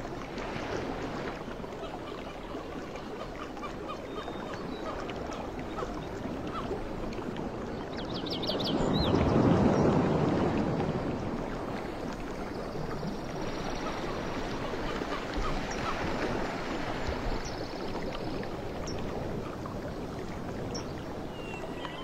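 Outdoor rushing noise that runs steadily, swells loudly for about three seconds around the middle and then settles back. A brief high chirping trill sits just before the swell.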